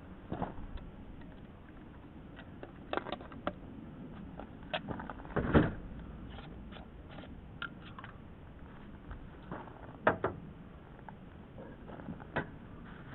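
Scattered light clicks and knocks of plumbing parts and tools being handled, the loudest a little over five seconds in and again about ten seconds in.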